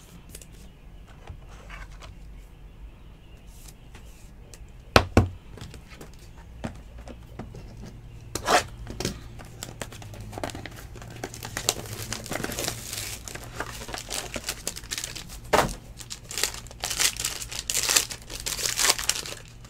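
Foil trading-card pack wrapper crinkling and being torn open. The crinkling grows dense in the second half, after a few sharp handling clicks earlier, over a steady low hum.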